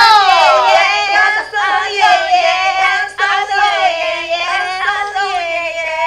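Singing voices carrying a melody in phrases, with short breaks between them.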